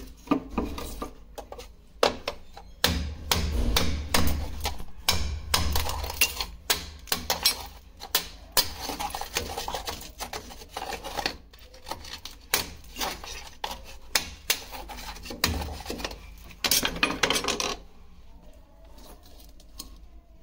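Irregular clinks, knocks and scraping of hard objects being handled and worked, stopping about 18 seconds in.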